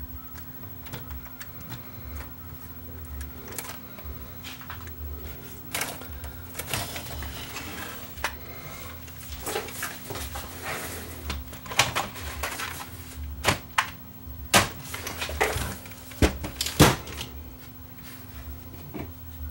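Irregular plastic clicks and knocks as the tape-deck and front-panel assembly of a Panasonic stereo is handled, its ribbon cable plugged in and the assembly seated back in the chassis. The clicks grow busier and louder in the second half, over a steady low hum.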